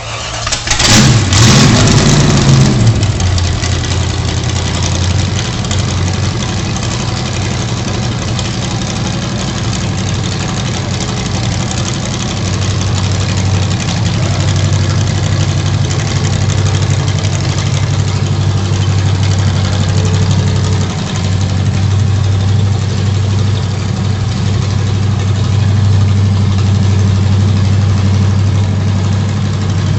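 Lawnmower engine running: about a second in it surges loudly, its pitch rising and falling back, then settles into a steady, even run.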